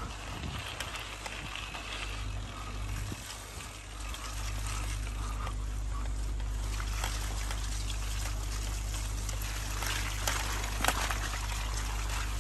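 Open-field outdoor ambience: wind rumbling steadily on the microphone over an even high hiss, with scattered light ticks that fit footsteps on grass as someone walks forward. It gets a little louder about four seconds in.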